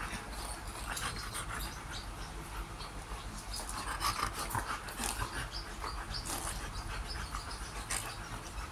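A Siberian husky and a Pomeranian play-mouthing each other at close range: wet licking and mouth clicks, with the dogs panting.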